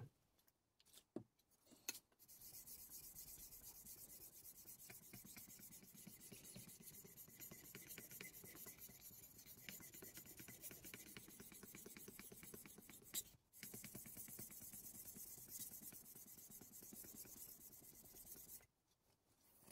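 A Deba knife's steel scraping back and forth on a Shapton Glass 320-grit whetstone during freehand sharpening: faint, steady strokes with a short break and a click about thirteen seconds in. The stone has not yet begun shedding abrasive particles and is still leaving a mirror polish.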